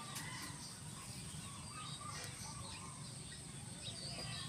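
Outdoor bird ambience: scattered short bird chirps over a constant high-pitched tone and a steady low background rumble.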